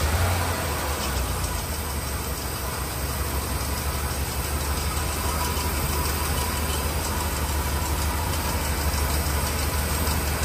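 The V8 engine of a 1975 Chevrolet Caprice Classic idling steadily, fed by its original two-barrel carburetor, running again after sitting unused for 28 years.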